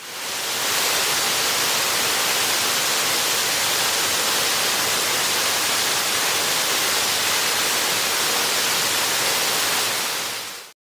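Waterfall rushing in a steady, even roar of falling water that fades in at the start and fades out at the end.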